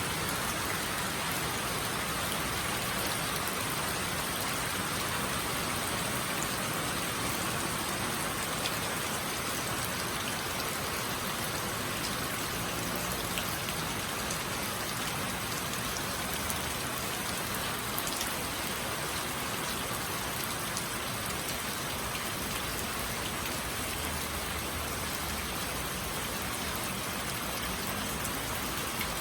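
Steady rain falling, an even hiss of drops with scattered individual drop ticks.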